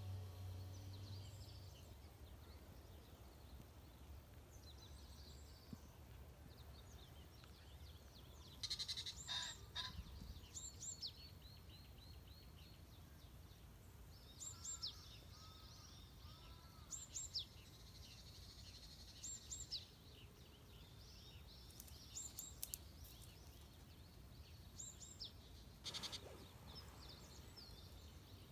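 Faint birdsong: short high chirps and trills every two to three seconds over a low steady hum, after a music bed fades out in the first couple of seconds.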